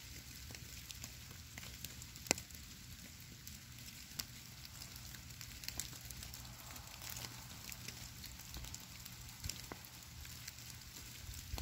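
Falling snow landing on a stone boulder and the snowy leaf litter around it: a faint, continuous crackle of tiny ticks, with a few sharper clicks now and then, over a low steady rumble.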